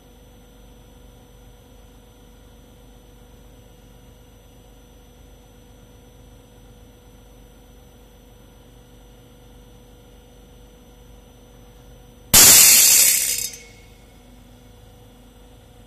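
Sheet steel tearing apart once as a spot-welded joint is peeled open in a destructive peel test: a sudden, loud, harsh rip lasting about a second, then dying away, over a faint steady hum.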